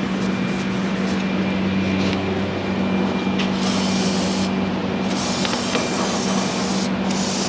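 Spraying hiss in three bursts: a short one about three and a half seconds in, a longer one of nearly two seconds, then a brief one near the end, over a steady low hum.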